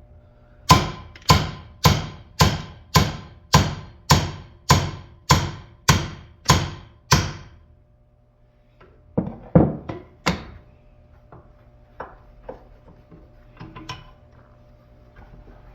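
Hammer blows on a punch, driving the pin out of a steel car door hinge held in a vise: about a dozen hard metal strikes, roughly two a second, each ringing briefly. After a pause come three more heavy blows, then a few lighter taps.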